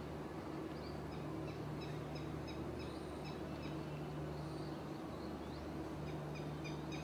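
Small birds chirping in series of short, high, repeated calls, a couple a second, over a steady low hum of background traffic.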